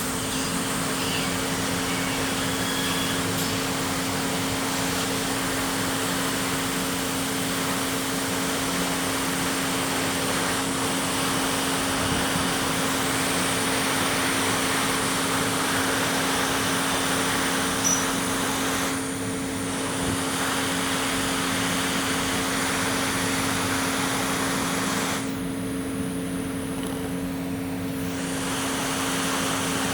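Electric air blower running steadily: a rushing hiss over a constant hum. The hiss drops briefly about two thirds of the way in and again for a few seconds near the end.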